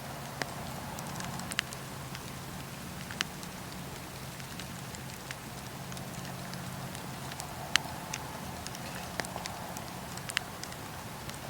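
Wood fire in a fireplace crackling: sharp, irregular pops and snaps every second or two over a steady low rush of flames.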